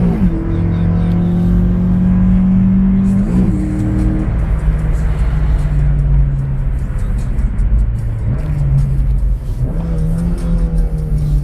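Mk2 Golf GTI 16v's 1.8-litre 16-valve four-cylinder engine (PL) running. Its note holds steady, dips and recovers briefly near the start and again about three seconds in, then settles to a lower, steady pitch.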